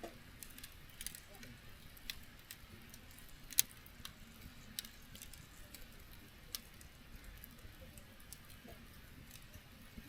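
Campfire crackling faintly: irregular sharp pops and snaps of burning wood, the loudest about three and a half seconds in.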